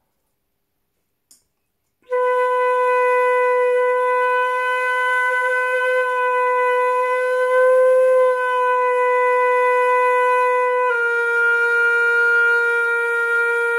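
Concert flute holding a long B-flat tone, starting about two seconds in, while the flute is turned through different angles against the lip. The pitch wavers up slightly past the middle and steps down a little about three seconds before the end, with some breathy air noise over the tone.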